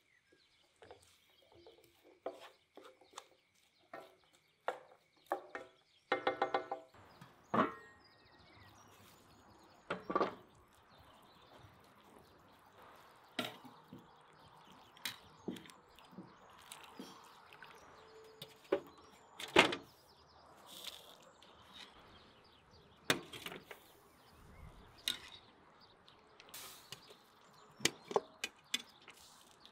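Kitchen utensil handling: a wooden spatula scraping and tapping through diced onions in a pan, then a wire skimmer knocking in a cauldron and setting boiled meat and bones onto a metal tray. Scattered knocks and clicks, with a quick rattling run about six seconds in.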